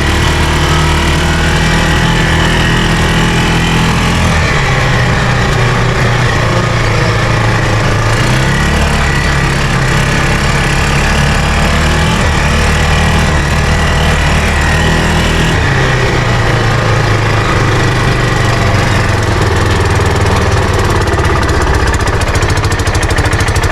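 Arctic Cat Prowler 500 side-by-side engine running loud and uneven, its speed stepping up and down several times as the carburettor and throttle are adjusted. It does not settle to a low idle.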